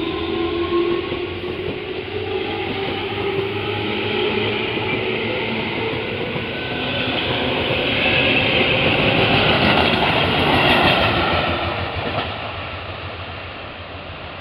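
Tobu 9000-series electric train running past close by. Its traction motors whine with a slowly rising pitch as it gathers speed, over the rumble of wheels on rail. The running noise swells louder from about seven to twelve seconds in, then fades.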